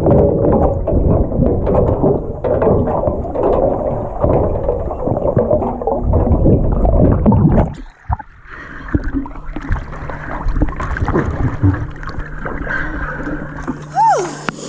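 Dense low rumble of water heard through an underwater camera in a shark cage, which cuts off suddenly about eight seconds in as the camera breaks the surface. After that, water splashes and sloshes at the surface over a steady low hum.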